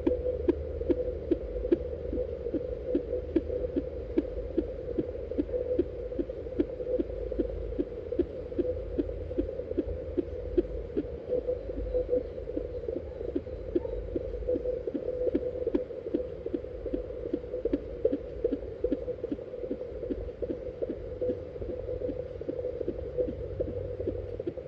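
Fetal doppler picking up an unborn baby's heartbeat: an even pulse of a little over two beats a second over a steady low rumble and hum.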